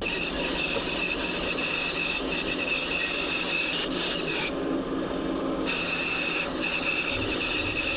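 Electric power tool running steadily on wood, with a high whine over a grinding rub. The high whine drops out briefly about halfway through.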